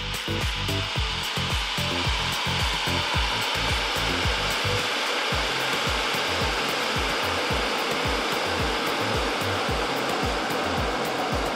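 SilverCrest EDS SWC 3100 A1 electric kettle heating water, a rushing hiss that swells over the first two seconds and then holds steady: the water is partway to the boil, not yet boiling. Background music with a steady low beat runs underneath.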